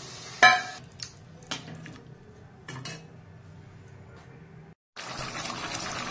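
A metal spatula clinks against a metal kadai several times, the first strike about half a second in the loudest and ringing. Just before the end, after a brief break, a steady hiss of the curry boiling takes over.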